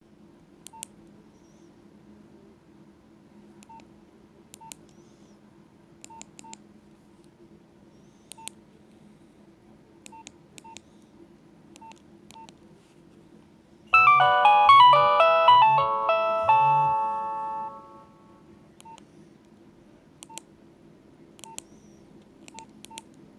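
Nokia 2610 mobile phone: short keypad beeps as its buttons are pressed, every second or so. About 14 seconds in, a ringtone plays loudly through the phone's small speaker for about four seconds, a quick melody of stepping notes over deep bass notes, its last notes ringing on and fading.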